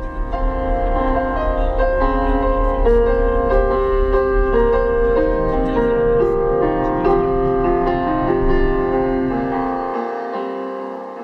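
Music, a melody of held notes on a piano-like keyboard over a low rumble, fading out near the end.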